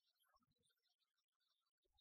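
Near silence, with only faint traces of sound.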